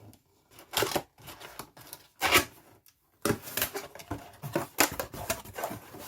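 Cardboard box being opened and its contents lifted out by hand: irregular scrapes, rustles and knocks of cardboard and packaging, the loudest a little over two seconds in and a busy run of handling in the second half.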